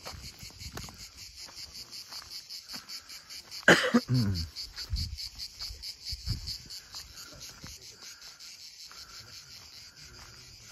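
Insects chirping steadily in a fast, even pulse, high-pitched, with footsteps on a gravel track. About four seconds in, a sudden loud knock is followed by a short burst of voice.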